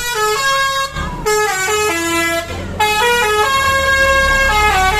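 Basuri 'telolet' multi-tone musical horn on a vehicle playing a tune of stepped held notes in three phrases, with short breaks about one second and about two and a half seconds in, over an engine's low rumble.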